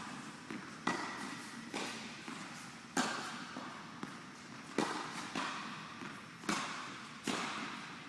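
Tennis ball being struck and bouncing in a rally: a string of sharp pops, roughly one every second, each followed by a short echoing tail.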